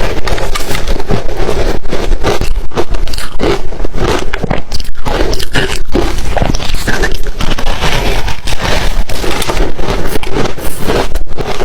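Ice being bitten and chewed right at the microphone: loud, continuous, rapid crunching and crackling with scraping in between.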